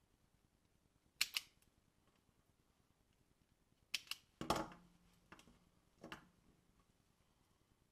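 Self-adjusting wire stripper snapping shut on thin wire ends: a quick double click about a second in, and more clicks about four seconds in. A dull knock follows as the tool is set down on the workbench, then a few lighter clicks.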